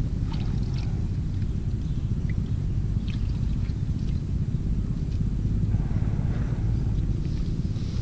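Steady low wind rumble buffeting the microphone, with a few faint light ticks and rustles from hands working in the grass.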